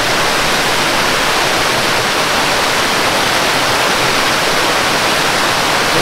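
Waterfall pouring down a rock face: a steady, even rush of water.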